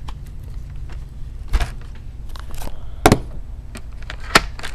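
Clicks and knocks of a laptop hard drive being worked loose and pulled out of its bay. Light clicks run through it, with three louder knocks about a second and a half apart, over a steady low hum.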